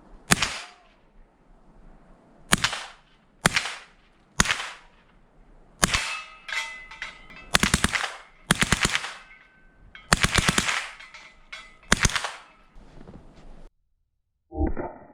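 9mm short-barreled rifle firing 115-grain FMJ rounds, about ten shots at irregular intervals of roughly a second, with a short ringing tail after several of them. The sound cuts off abruptly near the end.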